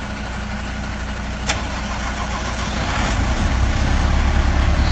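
Heavy tanker truck's diesel engine running at a low, steady idle, its low rumble growing louder about three seconds in as the truck pulls forward. A single sharp click about a second and a half in.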